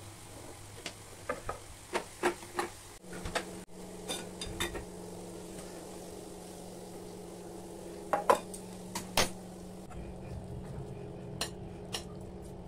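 A metal spoon clinking and scraping against small steel pans and bowls while a tempering is stirred and spooned out, with a steady low hum behind; the sharpest clinks come about eight and nine seconds in.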